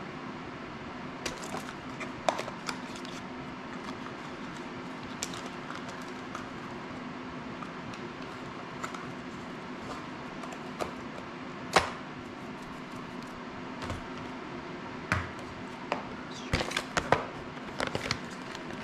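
Scattered small clicks and taps of hands handling drone parts, tools and packaging on a tabletop, over a steady hum; the taps come thicker near the end.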